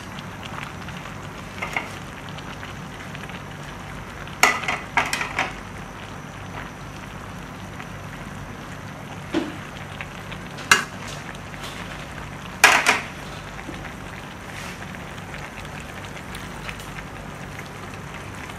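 Pork and vegetables frying in an aluminium wok with a steady low sizzle, while a metal spoon stirs them, scraping and knocking against the pan in three short clusters.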